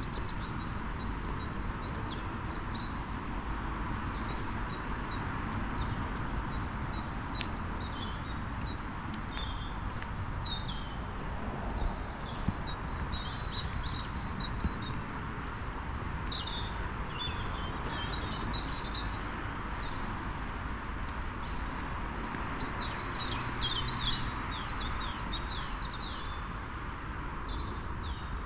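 Small songbirds chirping and singing, many short high calls in quick runs throughout, over a steady background rumble of outdoor noise.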